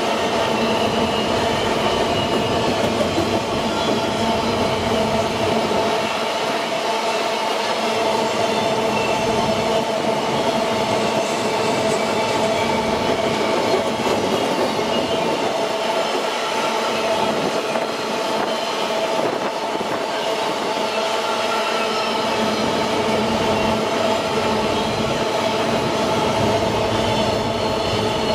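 Empty GDT iron-ore gondola wagons rolling past steadily, steel wheels clattering on the rails, with a steady high ringing whine from the wheels over the rolling noise.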